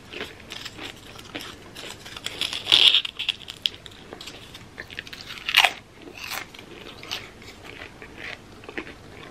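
Crunching and chewing of chips eaten with a thick pimento cheese dip, a rapid run of small crackles with louder crunches about three and five and a half seconds in.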